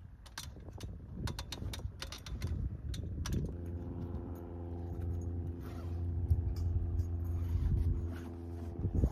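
Clicks, clanks and fabric rustling from climbing the roof-tent ladder, then the steady hum of a motor vehicle's engine idling, which starts about three and a half seconds in and cuts off shortly before the end.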